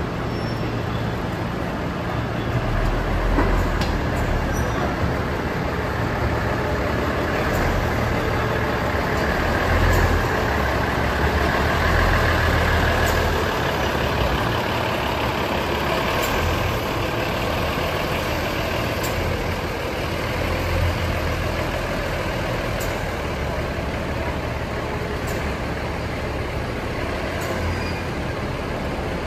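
Diesel engine of the DR2303 blue diesel railcar running steadily with a low drone that swells slightly in the middle, and a few faint ticks scattered through it.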